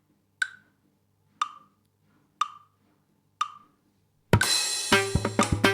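Four short metronome clicks, one a second, counting in. About four seconds in, a mridangam starts a fast phrase of strokes with ringing pitched tones.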